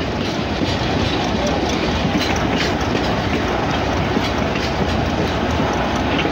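GE 80-ton center-cab diesel locomotive running along the track, its engine noise steady, with the wheels clacking over the rails. It is pulling on only one of its two Cummins diesel engines, the other having failed.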